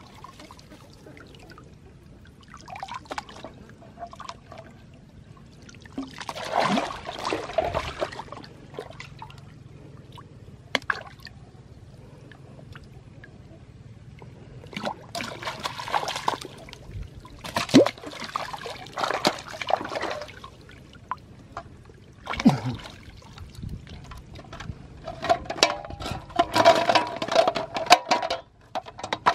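Pond water splashing and trickling in several irregular bursts as plastic-bottle fish traps are lifted and handled, with water running out of the bottles and a fish thrashing at the surface.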